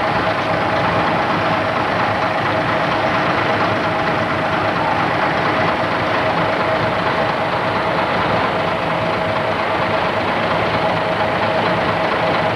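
A steady engine drone with a constant hum running through it.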